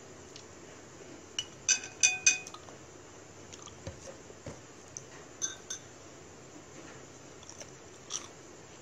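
Wooden chopsticks clinking against a ceramic bowl: a quick run of four sharp, ringing clinks, then a few lighter taps and one more near the end.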